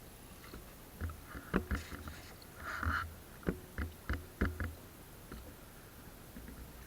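Irregular knocks and bumps in a small wooden fishing boat, with a short splash-like rush of noise about three seconds in, as the fisherman works with his gill net.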